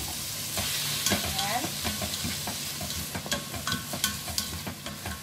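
Onion, garlic, ginger and chopped tomato sizzling in hot oil in an aluminium pot while a spatula stirs them, with repeated clicks and scrapes of the spatula against the pot.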